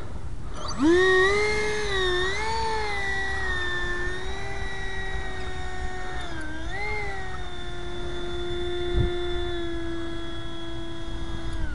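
R/C seaplane's motor and propeller whine. It is throttled up about a second in to a steady high pitch, wavers, dips briefly about six and a half seconds in, then holds steady. Wind rumble on the microphone underneath.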